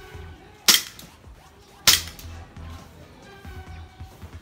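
Airsoft pistol firing two sharp shots, about a second apart.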